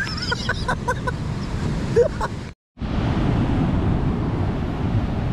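Pacific surf breaking and washing over rocks, a steady rushing noise mixed with wind buffeting the microphone. A few brief faint sounds come in the first two seconds; the sound drops out for a moment about two and a half seconds in, then the surf and wind continue evenly.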